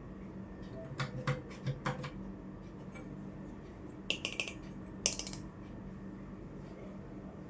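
Small hard toy kitchen pieces being handled and tapped: a few sharp clicks about a second in, then two short clattering runs of clicks around four and five seconds in.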